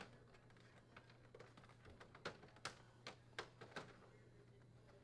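Faint, scattered clicks and taps of plastic dryer door parts being handled, with about five clicks between two and four seconds in, over a low steady hum.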